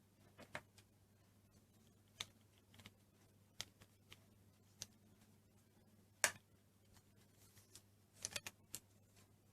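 Scattered light clicks and taps of plastic toy trucks and their packaging being handled, the sharpest about six seconds in and a quick run of clicks near the end.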